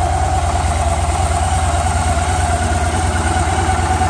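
2014 Victory Cross Country's 106 cubic inch V-twin, fitted with a stage 1 kit, idling steadily with an even low pulse.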